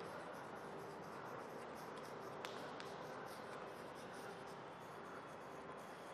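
Chalk scratching and tapping on a chalkboard as words are written, in many short quick strokes, with a couple of sharper taps a few seconds in; faint.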